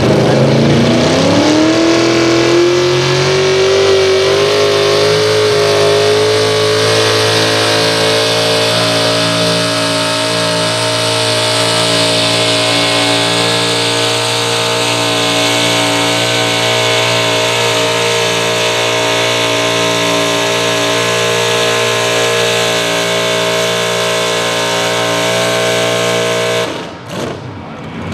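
Pulling pickup truck's engine revving up over several seconds, then held at a high, steady rpm under load while hooked to the pulling sled, before dropping away suddenly near the end. The truck is struggling on a very poor track and barely moves.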